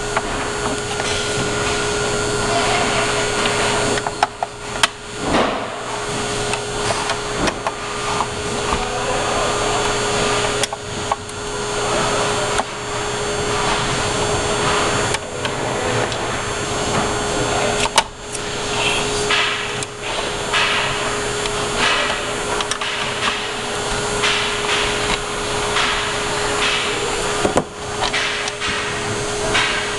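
Screws being taken out of a console's top with a screwdriver, with scattered clicks and knocks of the parts being handled. A steady whirring hum with one constant tone runs underneath.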